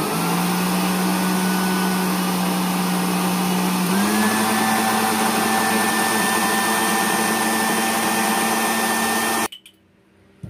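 Electric blender motor with its small grinding jar, grinding roasted coffee beans into powder. The motor runs steadily, its pitch steps up about four seconds in, and it cuts off suddenly near the end.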